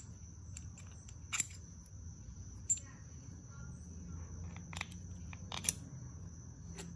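Small metal parts clicking as a steel bolt, washers and spacers are fitted by hand into a Perrin front sway bar end link: about five sharp clicks spread a second or so apart, over a steady high-pitched background tone.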